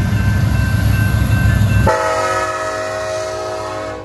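Diesel freight locomotives rumbling past close by. About two seconds in, the lead locomotive's air horn sounds a held chord, which cuts off at the end.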